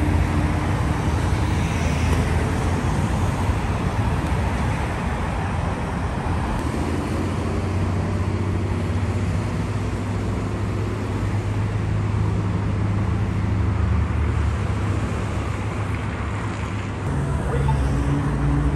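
Road traffic on a busy multi-lane street, with car engines running steadily. A louder engine hum comes in close near the end.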